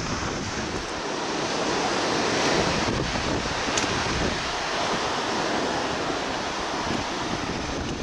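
Steady rush of wind buffeting the microphone mixed with sea surf, with no gull calling.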